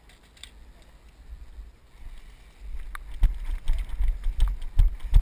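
Footsteps of a player running on dry dirt, jolting the body-worn camera. A dull thud comes about two or three times a second, with light clicks and rattle of gear, starting about halfway through.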